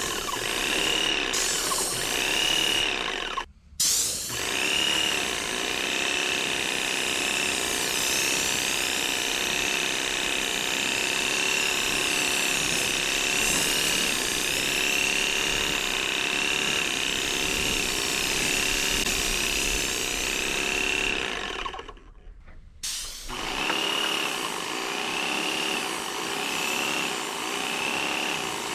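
Airless paint sprayer running: the pump motor runs with a regular pulse about once a second while the 515 spray tip hisses, laying polyurethane onto pine boards. The sound drops out briefly twice, once early and once for about a second and a half near the end.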